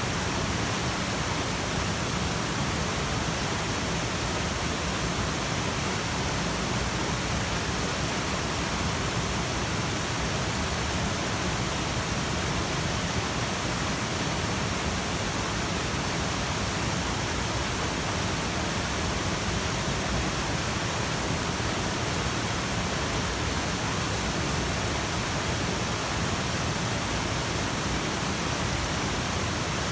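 Rushing water of a mountain stream, a steady, even hiss with no break or change.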